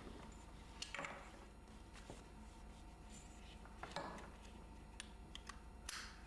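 Wheelchair restraint webbing and its metal buckles being handled, heard faintly: scattered light clicks and a few short rasping swishes as a strap is pulled.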